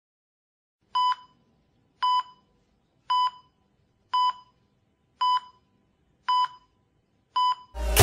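Hospital heart monitor beeping: seven short, evenly spaced electronic beeps, about one a second, with silence between. Music comes in right at the end.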